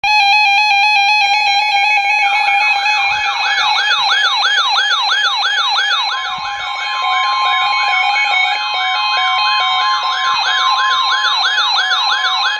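Synthetic electronic alert tones: several steady tones sounding together, joined about two seconds in by a fast repeating falling siren-like wail, about two and a half sweeps a second, with another steady tone added from about six to eleven seconds in.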